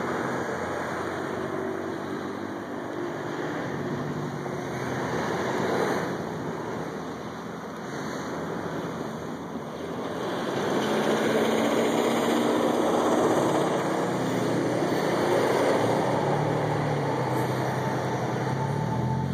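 Diesel engine of an ALCO C424 locomotive (a 16-cylinder ALCO 251) running as the locomotive approaches, getting louder from about halfway through. Near the end the engine's pitch rises as it revs up.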